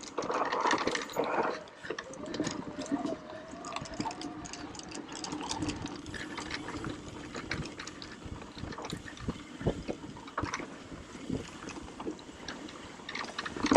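Mountain bike rolling fast down a dirt singletrack: a steady rush of tyres on loose dirt, broken by frequent clicks and rattles from the bike over bumps.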